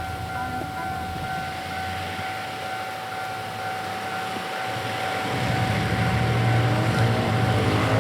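Level crossing warning signal sounding a steady electronic tone, which stops near the end. From about five seconds in, a low engine rumble grows louder.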